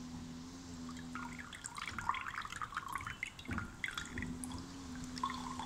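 Potassium permanganate solution poured in a thin stream from one glass beaker into another, trickling and dripping into the liquid below with light splashy ticks, most of them from about a second and a half in. A faint low hum runs under it.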